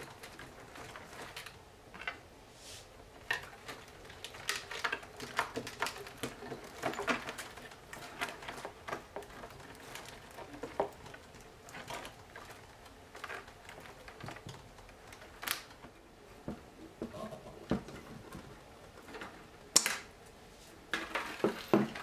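Bundle of thin bare twigs rustling and clicking against each other and a hard tabletop as it is gathered and arranged by hand, in irregular crackles. A single sharper crack comes about 20 seconds in, and a close run of clicks near the end.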